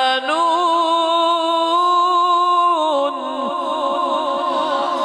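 Melodic Quran recitation: a single unaccompanied voice draws out the closing word "yahzanun" in one long held note, which from about three seconds in breaks into a rapid, even wavering ornament.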